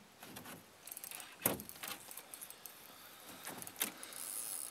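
Faint clattering and two sharper knocks as a landing net and fishing gear are handled against the side of an aluminum boat, with light water splashing near the end as a big pike is worked toward the net.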